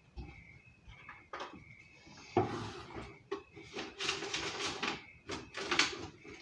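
Close handling and rustling sounds from hands working with items: a string of irregular crinkly rustles with a few small knocks, the loudest starting about two and a half seconds in and again from about four seconds.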